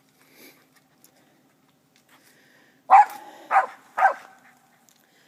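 Squirrel dog barking treed at a raccoon up a tree: three sharp barks about half a second apart, starting about three seconds in.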